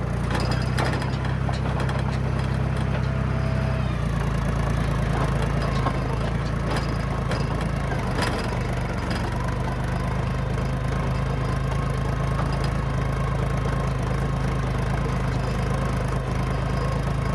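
John Deere crawler dozer's diesel engine running hard under load as it pulls on a chain, its steady note shifting about four seconds in. Sharp cracks come about a second in and again about eight seconds in.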